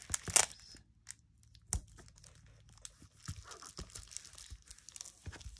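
Clear plastic tape crinkling and crackling as a hand presses and smooths it flat over paper, with sharp crackles near the start and again just under two seconds in, then a run of softer crackling.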